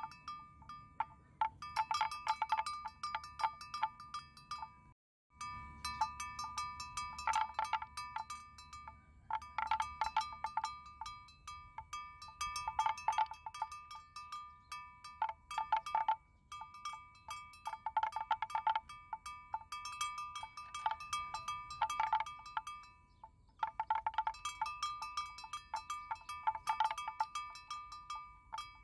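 A metal bell hung on a water buffalo calf's collar clinks in clusters of quick strikes every two to three seconds as the animal moves its head, ringing on between them. It drops out briefly about five seconds in.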